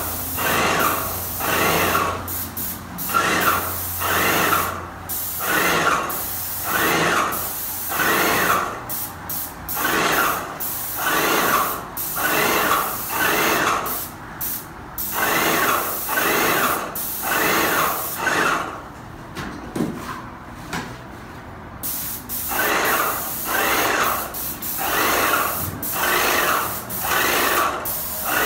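Airless paint sprayer at work: the pump pulsing in a steady rhythm, a little over one stroke a second, under the hiss of paint spraying from the gun. Around eighteen seconds in both stop for about four seconds, then start again.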